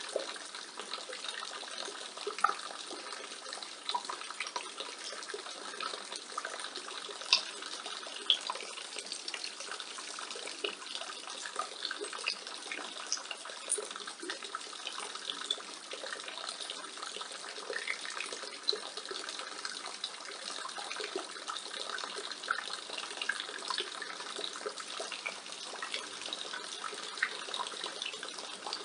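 Rainwater pouring steadily from a roof gutter and splashing onto the ground below, with many small scattered splashes and a few sharper drips standing out.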